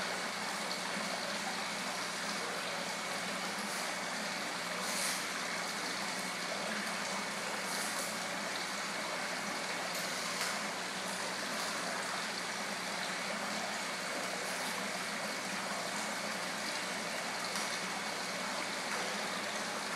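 Indoor koi pond's waterfall and jet return running: a steady rush of water. A few faint splashes come through it, about five, eight and ten seconds in, as the koi take food at the surface.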